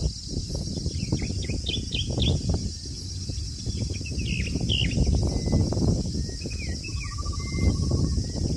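Birds chirping in short, falling calls, with a brief trill about seven seconds in. Under them run a steady high-pitched hiss and a constant low rumble.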